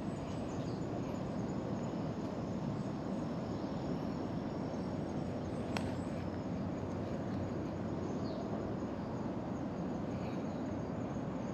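Steady outdoor background noise, strongest low down, with faint insect chirping high above it and one sharp click about halfway through.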